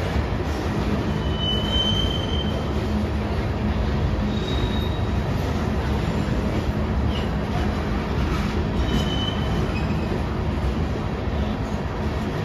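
Steady rumble of CSX covered hopper cars rolling past on steel wheels, with a few brief high-pitched wheel squeals about 2, 4 and 9 seconds in.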